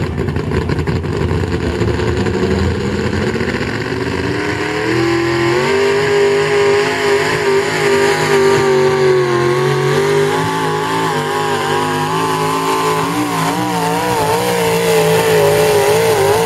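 Economy hot rod pulling tractor's 600-cubic-inch, single-carburettor engine revving up off the line and running at high revs under load as it drags the weight sled. The pitch climbs over the first five seconds, then holds high and wavers up and down near the end.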